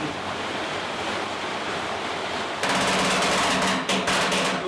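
Wooden screw crane of a grist mill creaking loudly as its screw is turned to lift the runner millstone off the bedstone. The rasping creak starts a little over halfway through, breaks briefly, and runs over a steady rushing background noise.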